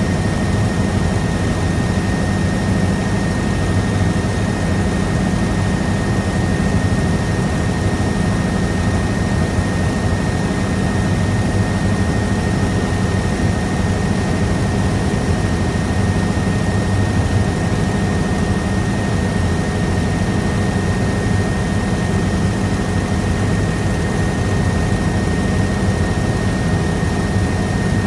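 Helicopter in flight: a steady engine and rotor drone with a constant high whine over it, unchanging throughout.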